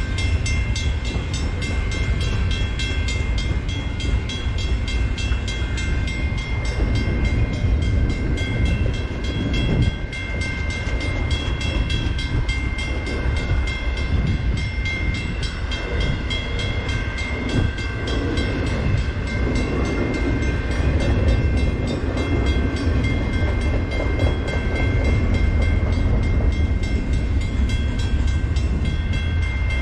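CP double-stack intermodal train rolling past a level crossing: a steady low rumble and rattle of the container well cars on the rails, with the crossing's warning bell ringing over it.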